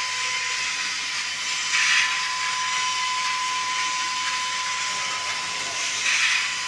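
Model steam locomotive's steam sound effects: a steady hiss with a thin steady whine under it, and two louder hissing puffs, about 2 seconds and 6 seconds in.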